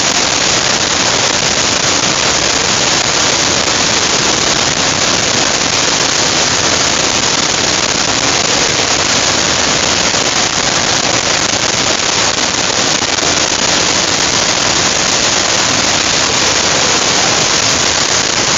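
Niagara Falls pouring past a tunnel portal: a loud, steady rush of falling water, heard from inside the rock tunnel behind the falls.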